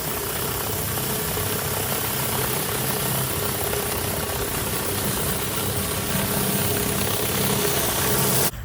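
Gas pressure washer running, its water spray hissing steadily over the engine's drone; the sound cuts off abruptly near the end.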